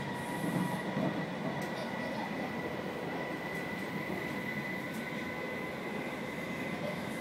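Inside a British Rail Class 319 electric multiple unit on the move: a steady rumble of wheels on rail, with a thin steady whine above it.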